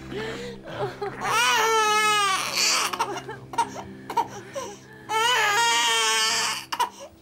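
Newborn baby crying just after birth: two long, high wails of about a second and a half each, the first starting about a second in and the second about five seconds in.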